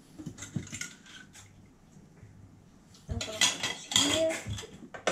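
Dishes and metal spoons clinking and clattering in a stainless steel sink as they are washed by hand: a few light clinks, then a busier, louder run of clattering about three seconds in.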